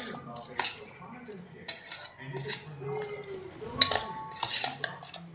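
Metal utensils clinking and scraping against dishes in a run of irregular sharp strikes and short scrapes, the loudest about four seconds in.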